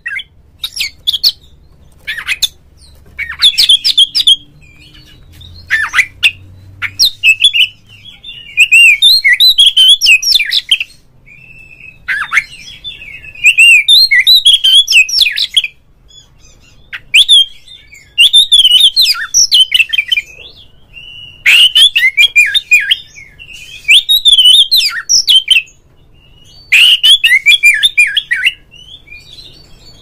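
Oriental magpie-robin (kacer) singing loudly in phrases of quick, high, fast-changing notes, each phrase one to three seconds long, with short pauses between them.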